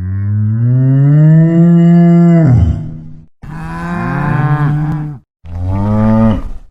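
Cow mooing three times: a long low moo of about three seconds, a shorter one, and a third that cuts off abruptly near the end.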